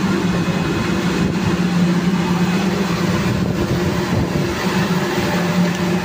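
Loud, steady hum of running plant machinery: a constant low drone over a broad mechanical noise, unchanging throughout.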